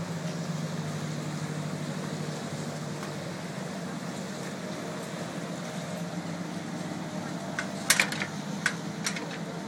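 Motorboat engine idling with a steady low hum as the boat comes alongside a landing stage, and a few sharp knocks near the end.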